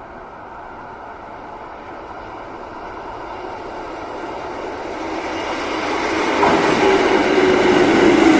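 Kotoden 1080 series two-car electric train approaching on the rails, growing steadily louder as it comes in. From about two-thirds of the way through, a strong low whining tone appears and falls slightly in pitch as the train slows to arrive.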